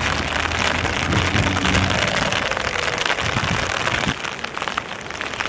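Steady rain hiss, with a low hum underneath in the first couple of seconds.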